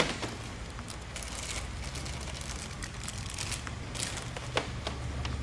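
A few faint clicks and taps of hands working wooden dowels and parts on the tabletop, the sharpest right at the start, over a steady low hum.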